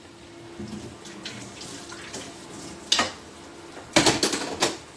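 Water running from a tap into a kitchen sink while metal pans and bowls are washed and moved, with one sharp metallic clank about three seconds in and a quick run of clattering knocks near the end.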